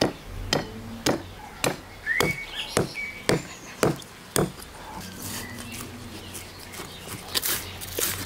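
Steel cleaver striking a large raw fish in regular sharp knocks, about two a second, for roughly the first half. After that come softer, denser scraping and crackling strokes as the fish is worked further. A short bird chirp sounds about two seconds in.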